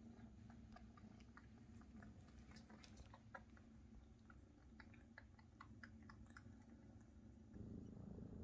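Maine Coon kittens suckling from their mother: faint scattered wet clicks and smacks over a low steady cat purr, which grows louder near the end.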